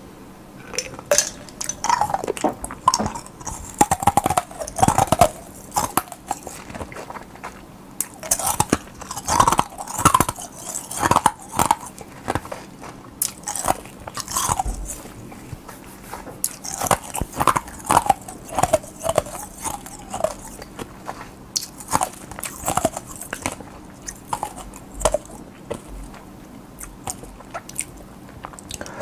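Close-miked mouth sounds: gulps of carbonated cola swallowed from a glass, then chewing and swallowing with many irregular wet clicks and smacks.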